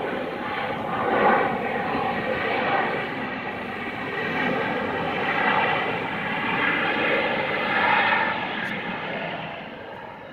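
Jet noise from an Embraer E175's twin turbofan engines as the airliner rolls out along the runway after landing: a steady rush that swells and ebbs and fades near the end.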